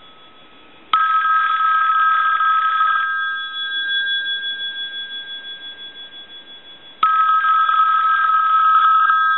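External telephone bell box ringing on its high setting: a ring starts about a second in and lasts about two seconds, the gongs fade out in a wavering hum, and a second ring starts about four seconds later, near the end.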